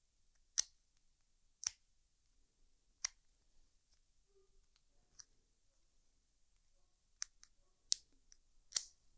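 Plier-style dog nail clippers snipping through a dog's toenails one at a time: about seven sharp clips, spaced a second or more apart at first, with the last few closer together.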